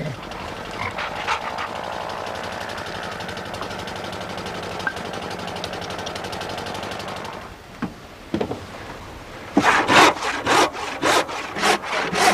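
A woodworking machine hums steadily for about seven seconds and then stops. After a couple of knocks, a hand saw cuts through wood in quick regular strokes, about three a second.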